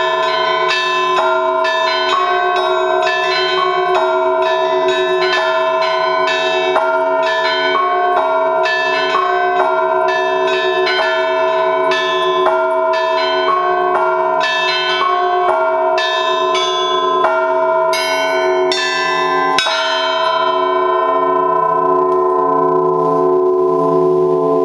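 Russian Orthodox church bells rung together in a fast trezvon in three-quarter time, the full peal that marks the end of the service. Near the end the strikes stop and the bells ring on, humming and fading out.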